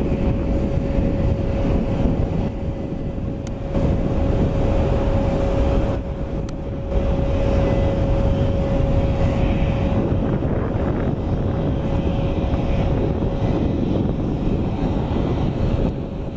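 Jet engines of an Airbus A330 airliner climbing away after takeoff: a steady rumble with a constant tone running through it, mixed with wind buffeting the microphone. The loudness dips briefly twice.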